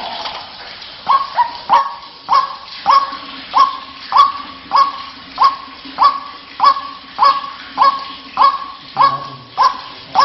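White-breasted waterhen (ruak-ruak) call played as a lure: a short note repeated steadily about every 0.6 seconds, beginning about a second in, each note leaping up to its pitch and holding briefly.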